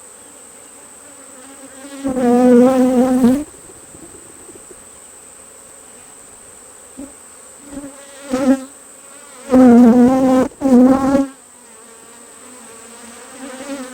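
Honeybees buzzing around an open hive, the colony's steady hum underneath. Bees fly close past the microphone with loud, wavering buzzes about two seconds in, briefly near eight seconds, and again around ten seconds.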